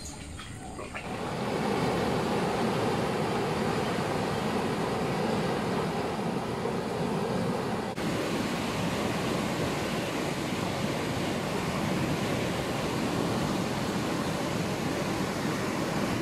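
Water rushing over a concrete weir into a canal, a steady, loud wash of white water that comes in about a second and a half in.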